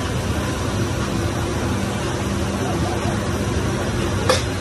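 A steady low mechanical hum, with one short knock near the end.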